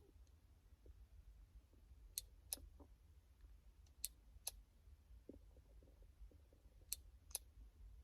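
Sharp clicks in pairs, a pair about every two seconds, over a faint low hum in a near-silent room.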